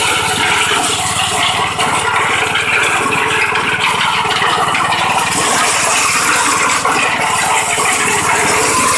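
Homemade corn sheller running at full tilt, belt-driven by a small petrol engine: a steady engine drone under a dense rattle of maize cobs being stripped in the drum and kernels pouring out.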